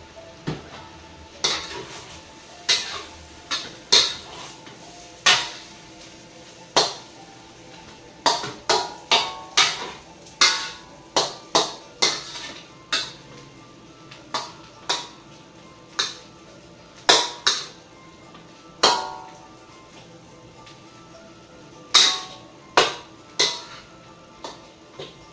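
Metal spatula striking and scraping a stainless steel wok while fried rice is tossed and stirred: irregular sharp clangs, each with a brief ring, in quick runs of two or three a second broken by short pauses.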